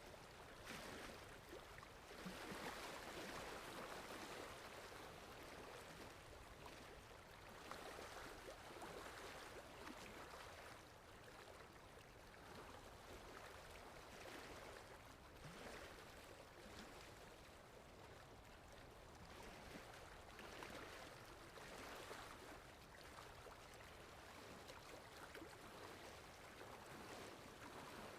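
Faint sea waves washing in, a rushing hiss that swells and falls back about every six seconds.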